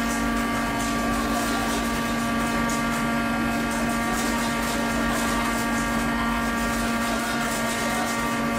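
Steady drone of a fishing vessel's machinery below deck, a constant hum with several steady tones over a mechanical rush, unchanging throughout.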